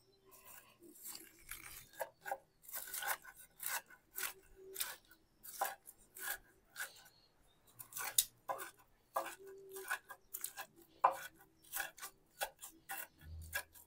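A blade chopping a cheese-topped beef patty together with pickle, onion, lettuce and sauces into a chopped burger filling: short, sharp strikes, about two a second.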